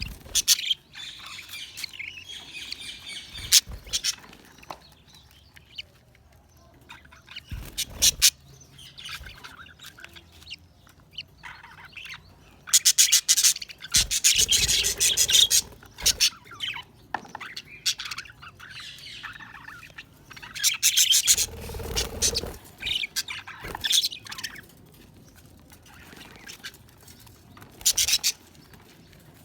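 Budgerigars chirping and squawking in irregular bursts, with several sharp knocks now and then.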